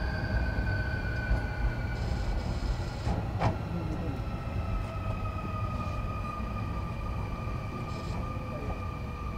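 Sotetsu Series 20000 electric train heard from inside the car: the traction motor and VVVF inverter whine slowly falls in pitch over a heavy running rumble, as the train slows. A sharp knock comes about three and a half seconds in.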